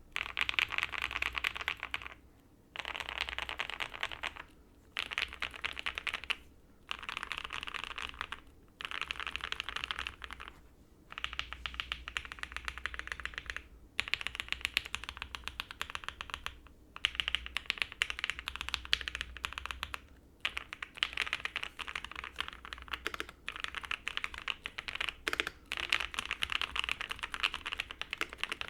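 Mechanical keyboard being typed on quickly: an OwLabs Jelly Epoch with lubed Banana Split linear switches on a POM plate, fully foamed, with GMK keycaps. The keystrokes come in bursts of a couple of seconds broken by short pauses.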